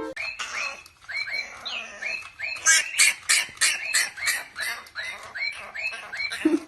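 An animal giving a rapid string of short, squeaky calls, about three a second, each dropping slightly in pitch.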